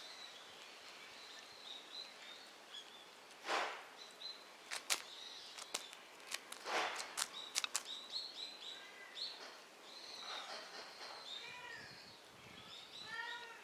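Small birds chirping, with many short high calls repeating throughout and a few short downward-sliding calls near the end; several sharp clicks or rustles cut in around the middle.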